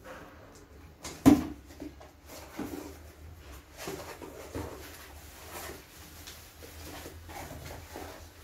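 Cardboard shipping box being opened by hand: packing tape slit with a cutter, then the flaps pulled open, with cardboard scraping and rustling. A single sharp knock a little over a second in is the loudest sound.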